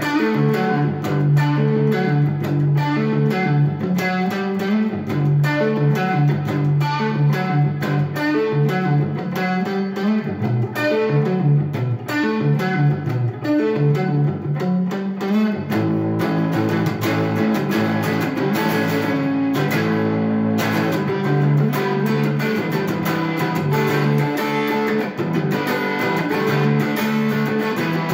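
Electric guitar played through an amplifier: a steady run of picked notes and riffs. About halfway through, the part changes to a different pattern of low notes.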